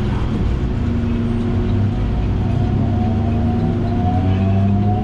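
Electric suburban train's traction motors humming steadily, with a whine that starts slowly rising in pitch about halfway through as the train picks up speed.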